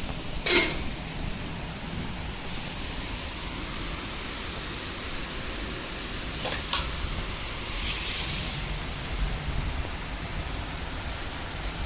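Steady hiss of falling rain, with two sharp clicks, one about half a second in and one just past the middle.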